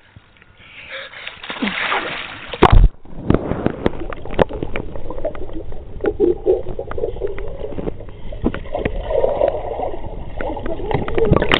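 Splashing water as swimmers duck under in a pool, then a sharp knock just under three seconds in as the microphone plunges below the surface. After that comes muffled underwater sound of bubbles, small clicks and moving water.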